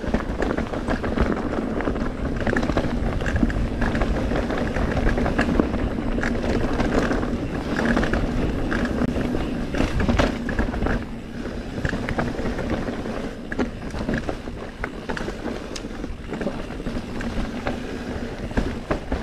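Mountain bike descending a rough dirt trail: a steady rush of tyres and wind on the microphone, with frequent rattles and knocks as the bike goes over bumps.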